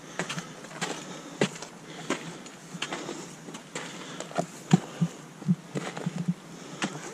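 A hiker's footsteps on a packed, icy snow trail, about three steps every two seconds, some landing harder than others.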